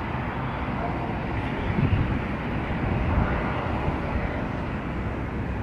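Jet airliner on landing approach, its engines a steady distant rumble. Low irregular buffeting swells around two and three seconds in.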